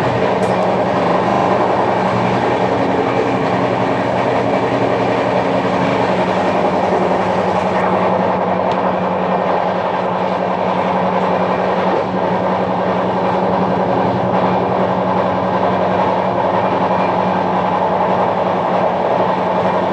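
Express train's coaches running at speed, heard from the open doorway: a loud, steady rumble of wheels on the track.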